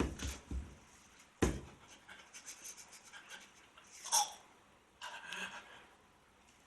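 A man breathing and sniffing hard through the nose in short bursts, with a couple of dull bumps near the start, as he tries to force a sneeze.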